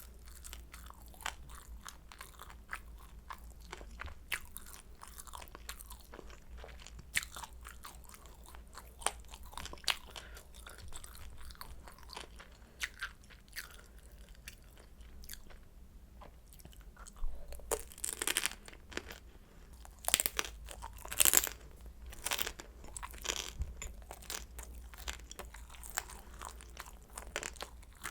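Close-miked chewing of crispy fried kimchi dumplings, with many small crisp crunches and a few louder crunching bites about two-thirds of the way through.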